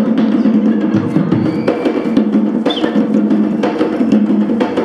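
Live African-style hand drumming by a costumed troupe, several drums struck in a fast, steady rhythm.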